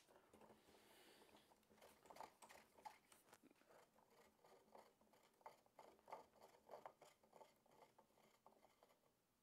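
Near silence, with faint, irregular small clicks and rustles of hands handling the PVC pipe on top of an upright submersible well pump.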